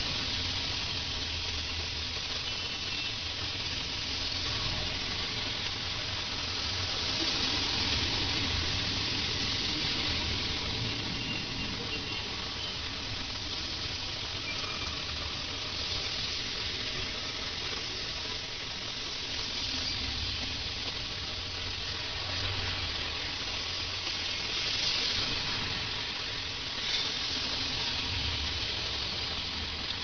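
Heavy rain falling steadily on a wet road, with a low rumble of traffic and tyres running through standing water.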